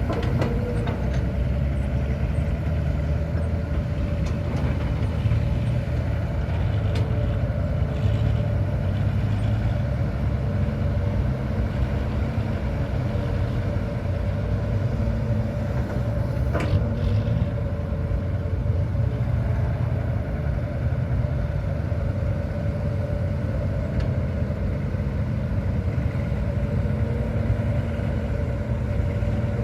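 Heavy diesel machinery running steadily: a Hitachi ZX200-5G excavator working while loading a ten-wheel dump truck, a continuous deep engine drone. A single sharp knock comes about halfway through.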